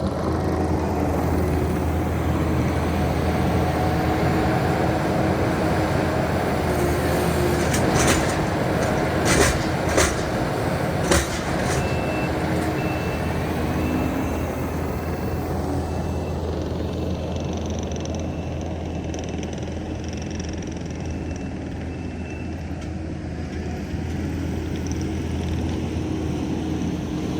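Heavy equipment engine running steadily, with a few sharp knocks about eight to eleven seconds in. A faint backup alarm beeps at an even pace from about twelve seconds in.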